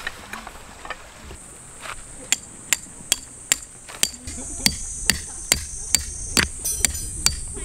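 Hammer driving a metal tent stake into the ground. Sharp, ringing strikes come in a steady run, about two and a half a second, starting about two seconds in after a few lighter taps.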